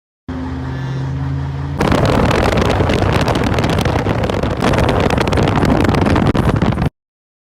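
A car's engine hums steadily. About two seconds in, a sudden, much louder rush of noise begins, dense with crackling and rattling, and it cuts off abruptly.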